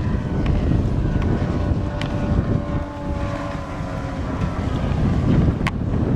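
Wind buffeting the microphone over the faint, steady drone of a Nitro NX 882 bass boat's outboard motor running at speed, which fades out near the end.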